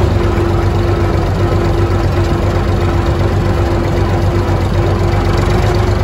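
Vintage tractor's engine running at a steady speed while driving, heard close from the driver's seat beside the vertical exhaust stack.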